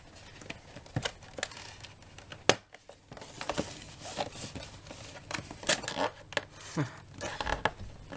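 Hands working at a tight product box: packaging rustling and crinkling, broken by irregular sharp clicks and knocks, the sharpest snap about two and a half seconds in.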